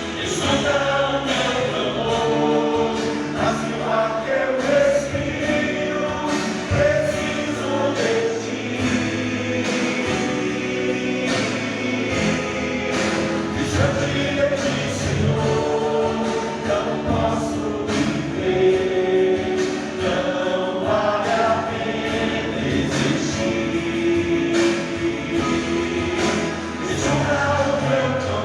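Gospel worship song sung by several voices together with instrumental accompaniment.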